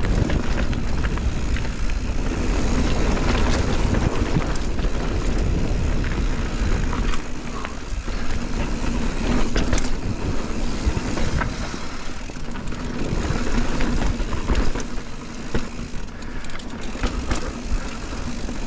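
Mountain bike riding fast down a dirt singletrack: steady wind rumble on the microphone and tyre noise on dirt, with the bike rattling and clicking over bumps.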